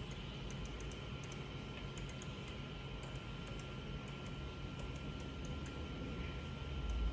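Steady hum of a laser repair station with a thin high whine, with faint irregular clicks of its controls being worked during the cut. A low rumble swells briefly near the end.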